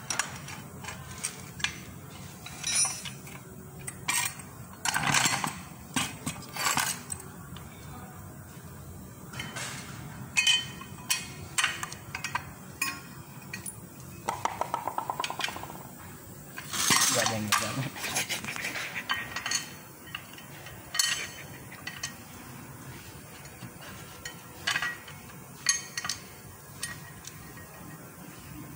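Metal parts and hand tools clinking and knocking as a power sprayer pump is bolted onto its steel mounting bracket with a wrench. There is a quick run of rapid clicks about halfway through, followed by a louder clatter.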